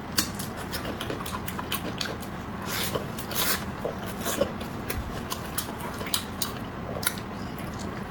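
Close-miked eating: a run of wet chewing clicks and lip smacks, with a few longer noisy mouth sounds about three seconds in.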